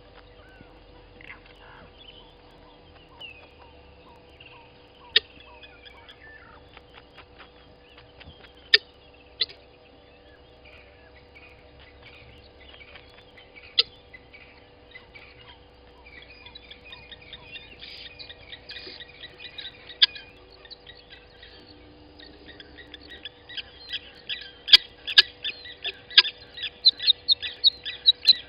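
Birds calling: scattered whistled and gliding notes and a few sharp clicks, then from about halfway a fast, chattering run of repeated calls that grows louder toward the end.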